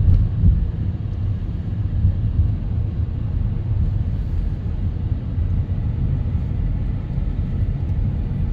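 Car interior noise while driving: a steady low rumble of engine and tyres on the road.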